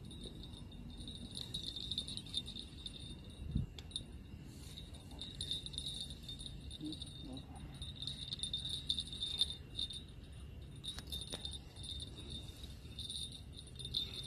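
Night insects, crickets, chirring in a high, pulsing shimmer that comes and goes in clusters, with a soft low thump about three and a half seconds in.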